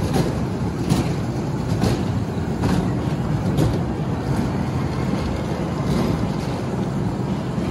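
Small ride-on kiddie train running on its oval track, a steady rumble of wheels and motor with a faint click about once a second.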